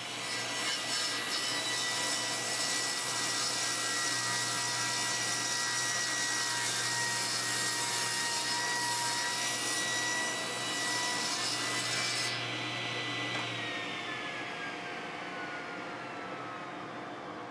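Table saw ripping a long solid walnut board, the blade's steady whine under a dense cutting hiss. The cut ends about twelve seconds in, and soon after the saw is switched off and the whine falls in pitch as the blade spins down.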